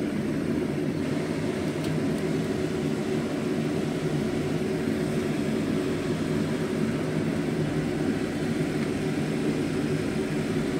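A steady, even whirring drone with a pot of soup at a rolling boil on the stove; the drone runs unchanged throughout.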